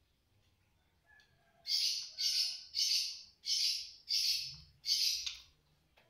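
Caged white-rumped shama (murai batu) giving six harsh, rasping calls about two thirds of a second apart, after a few faint whistled notes; the bird is still aggressive.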